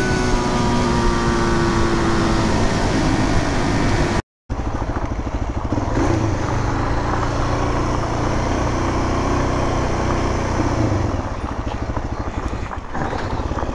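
Suzuki DR-Z400SM's single-cylinder four-stroke engine, its pitch falling steadily for the first few seconds as the bike slows. After a brief break in the sound about four seconds in, it runs at low, fairly steady revs.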